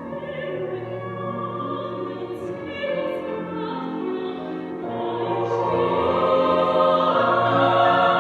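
A choir singing held notes, growing louder in the second half.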